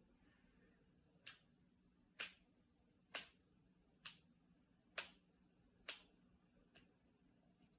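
Finger and knuckle joints cracking: seven short sharp pops about a second apart, the last one faint.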